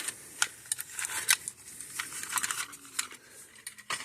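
Small clicks and taps at irregular intervals, a few close together, of electronic parts and hand tools being handled on a workbench.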